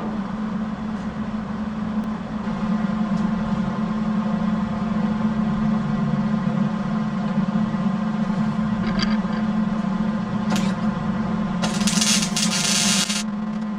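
A machine running with a steady hum, and a burst of hiss about twelve seconds in.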